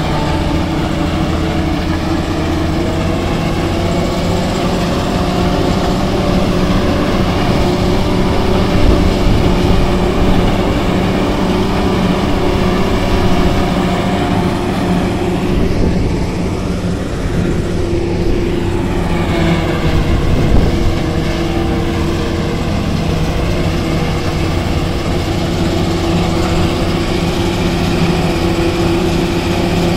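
Self-propelled forage harvester running steadily while chopping standing maize and blowing it into a trailer: a continuous engine drone with the noise of the cutter and blower. About midway the engine pitch sags, then climbs back.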